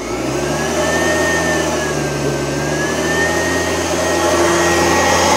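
Oreck Edge upright vacuum cleaner switched on and running, its motor spinning up over the first second and then holding a steady high whine that wavers slightly in pitch.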